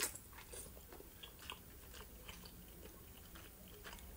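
Close-miked chewing of a mouthful of soft boiled dumpling, with a sharp click at the start as the bite goes in, then faint wet smacks and clicks.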